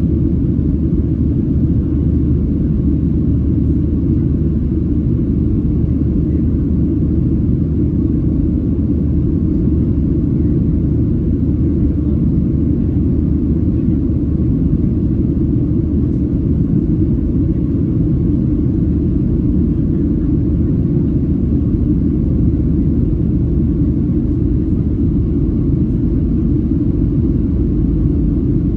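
Steady low rumble of a Boeing 737-700 in flight, its CFM56-7B engines and airflow heard inside the passenger cabin, holding an even level throughout.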